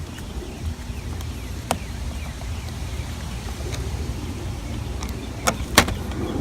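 Steady low rumble with a few sharp clicks: one a little under two seconds in, then two close together near the end, the second the loudest.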